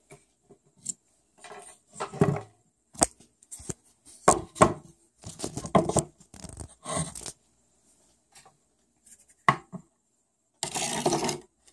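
Hands handling small plastic toy animal figures and a plastic playset on a wooden tabletop: scattered taps, clicks and scrapes, with a longer stretch of rustling and scraping near the end.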